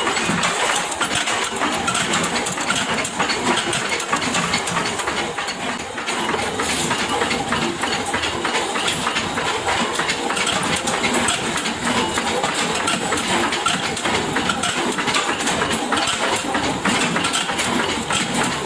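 Metalworking machinery running steadily, a dense continuous clatter of rapid fine clicks over a loud mechanical noise.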